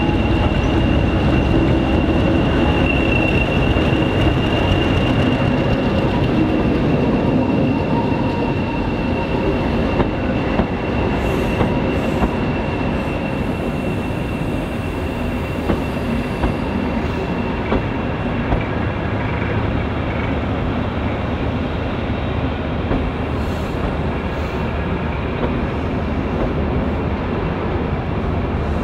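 Class 20 diesel locomotive running as it hauls a train of passenger coaches slowly round a curve, with a steady low rumble of engine and wheels. A thin high wheel squeal from the curve carries through the first half and fades. From about a third of the way in, sharp clicks come as the coach wheels cross rail joints.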